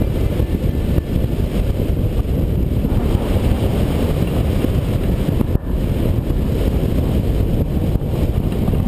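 Airflow buffeting the microphone of a camera mounted on a rigid-wing hang glider in flight: a steady, dense low rumble of wind noise with one brief dip about five and a half seconds in.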